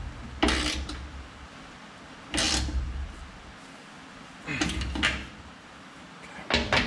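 Socket ratchet wrench clicking in four short bursts about two seconds apart, each with a low knock, as bolts on a steel mounting bracket are tightened.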